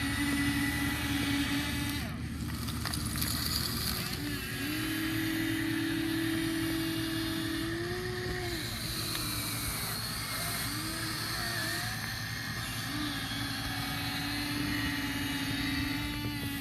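Huina radio-controlled excavator's small electric motors whining as it works, the pitch stepping and gliding up and down as different functions start and stop.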